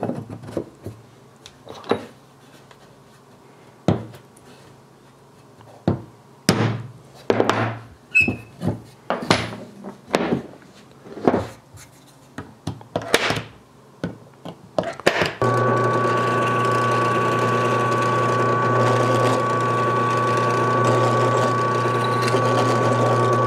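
A hammer taps a transfer punch a dozen or so times, separate sharp knocks a second or two apart, to mark hole positions in wood. About fifteen seconds in, an electric power tool starts and runs steadily with a low hum and a steady whine.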